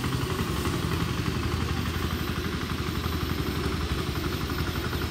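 Walk-behind power tiller's engine running steadily under load as it ploughs a garden plot.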